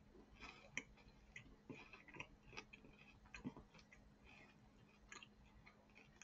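Faint, irregular soft crunches and clicks of someone chewing a flaky, chocolate-filled pastry.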